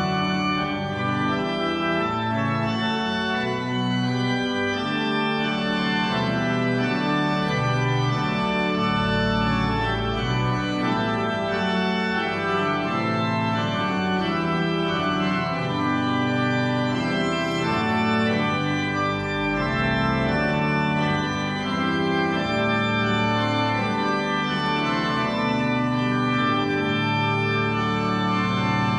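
Organ playing slow, sustained chords, with deep bass notes sounding beneath them twice.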